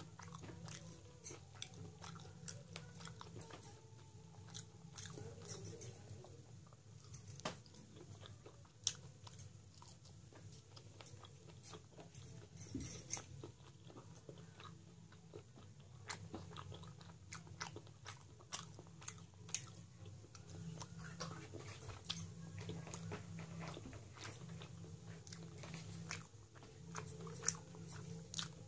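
Close-miked chewing of dry mutton curry and rice eaten by hand: wet mouth clicks, smacks and crunches at irregular intervals over a steady low hum.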